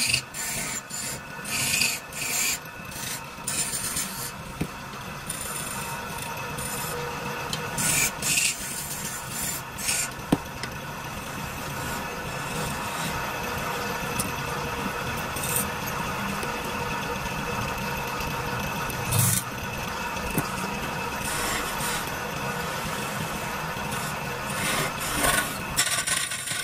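A wood lathe runs with a steady hum while a hand-held turning chisel cuts into the spinning wooden baluster blank, giving rasping, scraping cuts. Short bursts of cutting come in quick succession over the first ten seconds and again near the end, with a steadier scrape between them.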